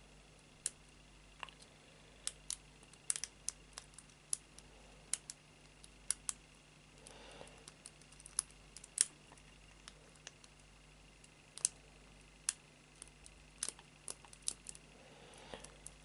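Lock pick and tension wrench working the pin tumblers of a Chubb 40mm brass padlock: small, irregularly spaced metallic clicks and ticks as the pick lifts the pins.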